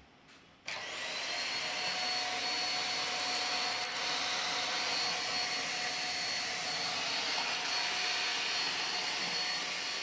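INALSA Ozoy Plus 700-watt handheld vacuum cleaner switching on about a second in, then running steadily as it sucks soil off a tiled floor. It gives a rush of air with a steady high whine on top.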